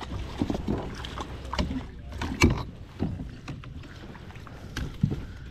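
A hooked bass thrashing and splashing at the water's surface beside a kayak and being scooped into a landing net: irregular splashes and knocks, the loudest about two and a half seconds in.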